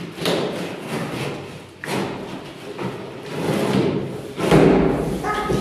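Scissors slitting packing tape along the seam of a large cardboard box, then the cardboard flaps being pulled open with scraping and thumps, the loudest thump about four and a half seconds in.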